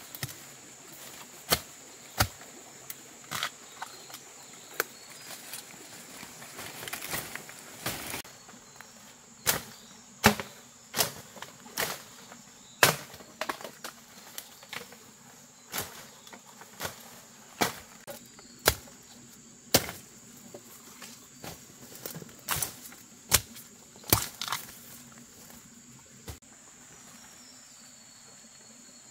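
Sharp knocks or chopping strikes at irregular intervals, about one a second, stopping near the end, over a steady high-pitched insect drone.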